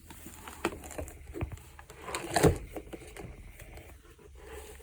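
Handling sounds of unpacking: scattered rustles and light knocks as the packaged device and its cloth cover are handled, the loudest about two and a half seconds in.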